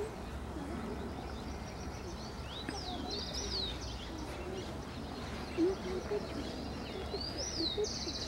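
A songbird singing its short phrase twice: a quick high whistle that slurs up and down, then a fast dry trill. A brief low sound, the loudest moment, comes just past the middle.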